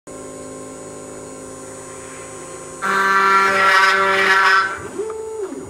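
CNC router spindle running steadily with a 5 mm downcut bit. About three seconds in, a loud, shrill cutting noise lasts roughly two seconds as the bit plunges into the plywood pieces. Near the end comes a short whine that rises, holds and falls as the machine moves.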